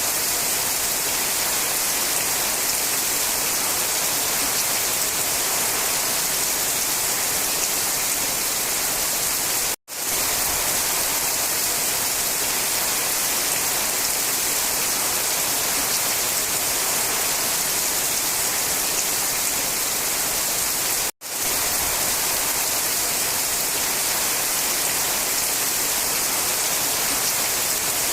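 Steady rain falling on a forest, an even hiss heavy in the high end. It cuts out for a split second twice, about ten and twenty-one seconds in, then resumes unchanged.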